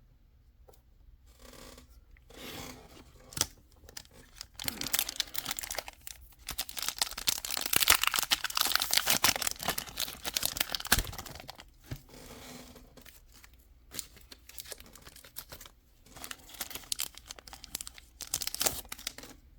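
Foil Pokémon booster pack wrapper being torn open and crinkled, the loudest tearing in a long stretch around the middle, with shorter rustles and clicks of handling before and after.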